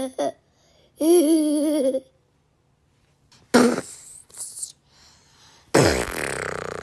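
A toddler's voice making imitation animal noises: a short pitched call about a second in, two brief breathy bursts, then a long raspy blowing sound starting near the end that slowly fades.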